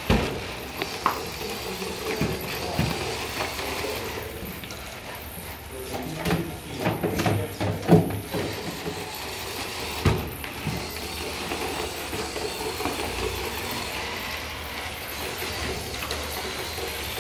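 FIRST Tech Challenge competition robot driving around its field under gamepad control, its electric drive motors running, with a run of clattering knocks about six to eight seconds in and a single knock near ten seconds.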